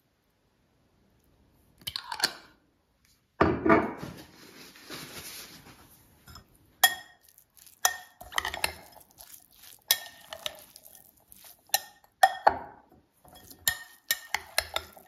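Metal utensil clinking and scraping against a glass bowl as a salad is stirred, in a run of sharp clinks from about seven seconds in. A dull thump about three and a half seconds in is the loudest sound.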